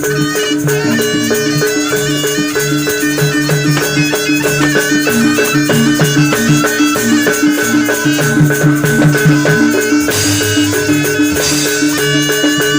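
Jaranan music from a live East Javanese ensemble: drums keeping a steady beat under sustained held tones and a fast, reedy wind melody.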